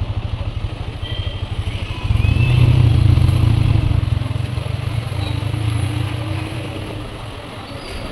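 A motorcycle engine running with a quick, even thump, growing louder about two seconds in and easing off over the last few seconds.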